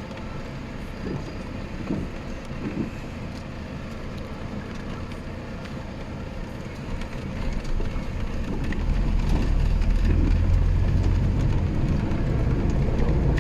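GAZelle Next truck heard from inside the cab: a steady low engine and road rumble that grows louder about two-thirds of the way through.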